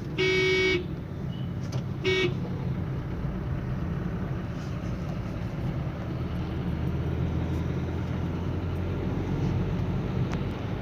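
A car horn toots for just under a second, then gives a short second toot about two seconds in. Under it runs steady engine and road noise inside a Nissan Sunny's cabin at speed, without the humming that the loose wheel bearing used to make.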